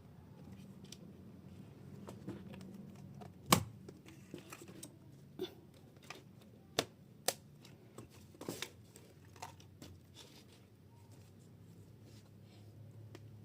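Irregular clicks and knocks from handling a tablet keyboard and its packaging, with one loud knock about three and a half seconds in and a few sharp clicks a little later.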